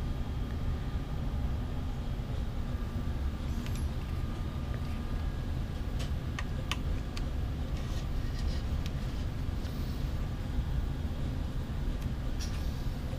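Steady low rumble, with a few small sharp clicks from about six seconds in: a screwdriver turning an M5 screw up through the bed bracket into a T-nut.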